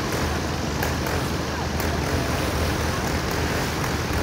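Steady vehicle noise: a constant low hum under an even rushing sound, with faint light ticks now and then.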